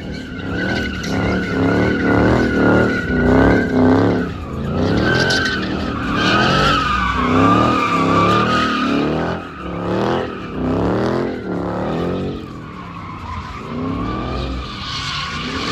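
A car doing donuts, its tires squealing steadily under wheelspin while the engine revs up and down over and over. The revving eases off somewhat in the last few seconds.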